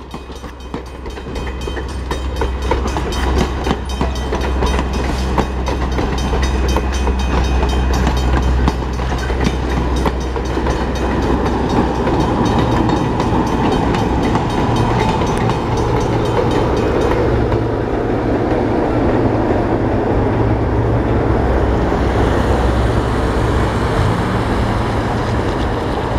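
Passenger train passing a grade crossing, its coach wheels clicking rapidly over the rail joints. From about halfway through, the trailing diesel locomotive's engine runs past with a steady low drone.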